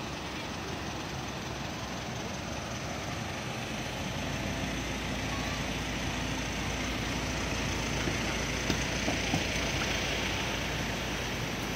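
Vehicle engine running steadily, growing a little louder about four seconds in, with a few light knocks near the end.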